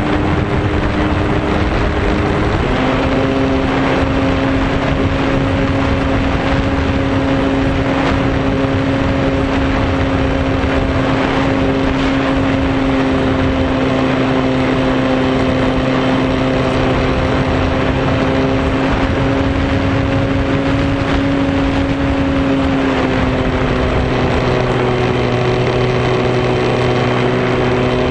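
RC airplane's motor and propeller running steadily at a held throttle, with wind rushing over the microphone. The pitch shifts a little about two and a half seconds in and again near the end.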